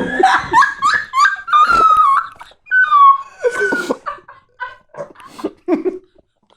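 High-pitched laughter in quick repeated bursts, turning into shorter breathy laughs that thin out over the last couple of seconds.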